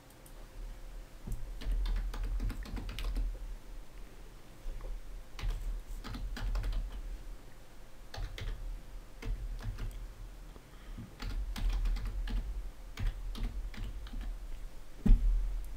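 Typing on a computer keyboard: uneven runs of keystrokes with short pauses between them, entering an email address. A dull thump near the end.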